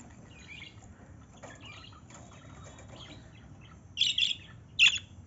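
Small bird chirping in short, high calls, faint at first, then two loud bursts of chirps near the end.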